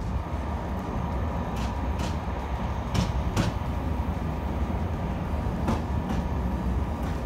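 Narrow-gauge train running along the track, heard from an open carriage window: a steady low rumble with a few sharp clacks, mostly in pairs, from the wheels.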